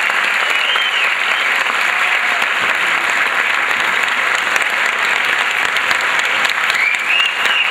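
Theatre audience applauding steadily through a curtain call. A few high calls rise over the clapping at the start and again near the end.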